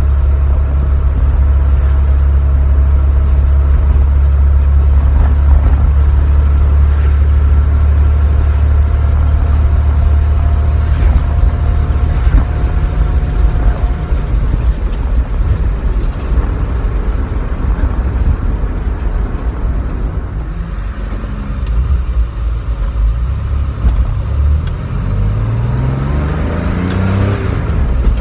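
Porsche 911 SC's air-cooled 3.0-litre flat-six heard from inside the cabin while driving: a steady low drone at cruise, a change in note about halfway through as a gear is shifted, and the engine revving up under acceleration near the end.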